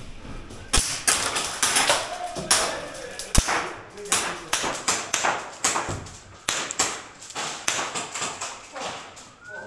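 A string of sharp, irregular cracks from airsoft guns firing single shots and BBs smacking plywood walls, two or three a second. Two heavier knocks come about a second in and at about three and a half seconds.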